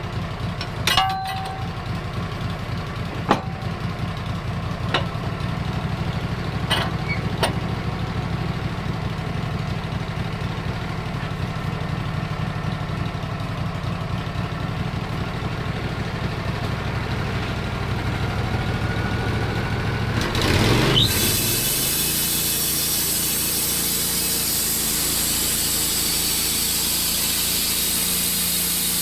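Wood-Mizer LT15 portable band sawmill's engine idling, with a few sharp knocks in the first eight seconds. About twenty seconds in the engine revs up as the band blade engages, and a steady high hiss of the blade sawing through black cherry follows.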